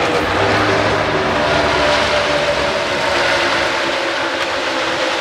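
A field of NASCAR stock cars racing around the banked track, making a continuous loud roar of many V8 engines at speed that eases slightly in the second half.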